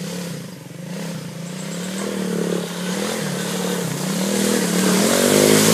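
Three-wheeled ATC's engine revving as it pulls through deep mud, its pitch rising and falling several times and growing louder as it approaches.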